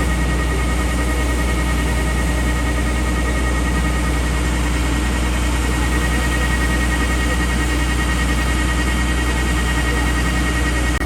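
An engine running steadily, with a constant deep hum and a steady high whine that hold unchanged.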